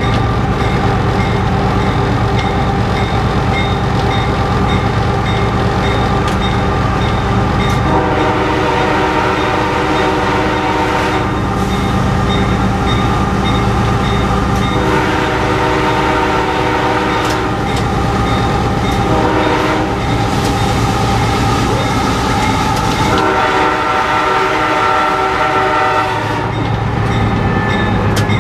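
Locomotive air horn sounded from inside the cab in several long chord blasts, the first about eight seconds in, over the steady rumble of the diesel engine and the train in motion. A rapid, regular ringing sounds behind it, mostly in the first half and again near the end.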